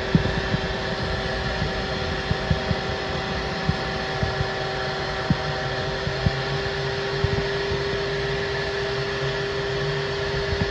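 Ridgid wet/dry shop vacuum running steadily with a constant motor whine, pulling water and dirt from the bottom of an above-ground pool through its hose. Irregular low knocks come through on top of the steady running.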